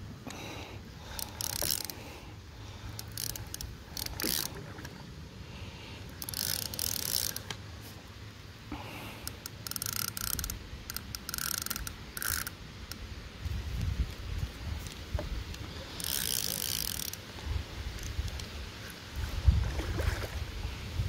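Fishing reel cranked in repeated short spurts with a whirring, ratcheting sound while reeling in a hooked catfish under load. Low wind rumble on the microphone comes in during the second half.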